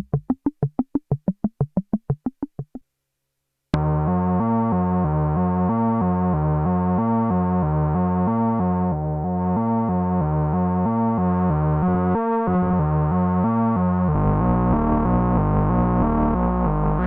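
Behringer Octave Cat analog synthesizer playing sequenced notes. It opens with fast, short staccato notes that stop about three seconds in. After a second of silence a continuous line of stepping pitches starts, with a brief break partway through and a fuller, bassier sound near the end.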